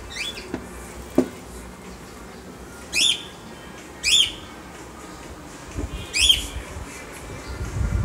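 A bird calling: four short, sharp, high calls spaced a second or more apart, over a steady low background noise.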